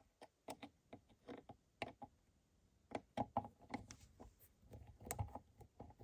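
Faint, irregular small clicks and scrapes of a screwdriver backing out the mounting screws of a duplex electrical outlet.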